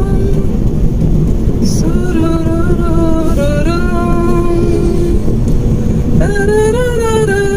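A woman humming a slow, unaccompanied tune in long held notes that step and glide between pitches. Under it runs the steady engine and road noise of a small car, heard from inside the cabin.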